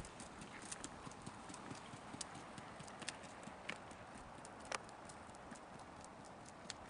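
Hooves of a miniature horse pulling a two-wheeled cart, clip-clopping as faint, irregular sharp clicks over a steady hiss.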